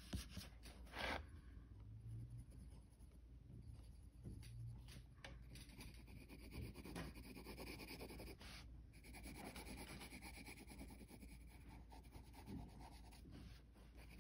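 Graphite pencil scratching across paper in faint, repeated shading strokes, with a couple of slightly louder scrapes near the start.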